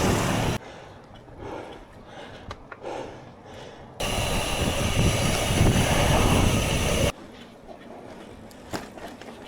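Strong wind rumbling on an action camera's microphone while cycling: a loud rushing noise that cuts in and out abruptly, once briefly at the start and again for about three seconds midway, with quieter stretches between.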